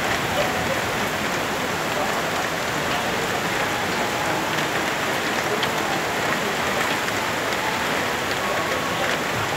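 Heavy rain pouring down steadily in a rainstorm, an even hiss of falling water.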